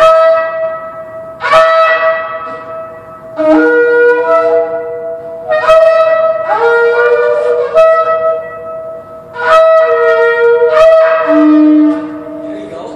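Two Yemenite shofars blown together: a run of about eight loud, held blasts that start sharply and step between a high, a middle and a low note, the two horns often sounding at once. The notes echo in a parking structure and ring on briefly after the last blast.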